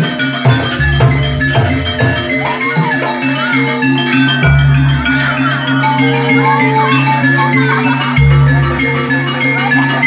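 Live jaranan music from a Javanese gamelan-style ensemble, played loud through speakers: metallophones ringing out quick steady notes with drums, and deep gong strokes about four and a half and eight seconds in.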